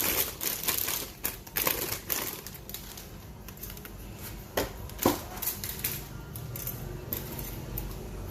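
Plastic packaging of a model-kit part being opened and handled: irregular crinkling and crackling, with two sharper clicks about halfway through, then quieter rustling.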